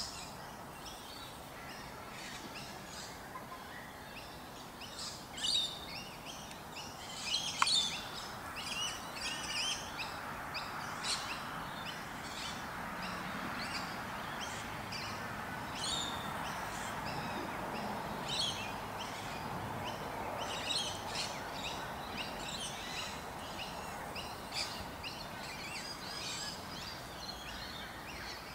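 Birds chirping and twittering in short, high calls scattered throughout, over steady background noise. One sharp click about a third of the way in.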